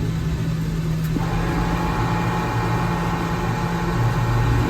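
Steady low hum of a vehicle engine idling, heard from inside the cab. About a second in, a hiss of CB radio static suddenly opens up over it and carries on.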